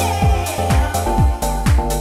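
Electronic dance music with a steady four-on-the-floor kick drum, about two beats a second, over a low bass line and held synth chords.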